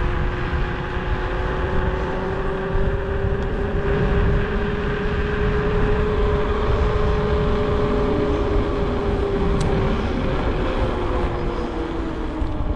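Knobby mountain-bike tyres humming on asphalt, a steady droning tone that rises slightly and then sinks toward the end as the bike's speed changes, over heavy wind rumble on the microphone.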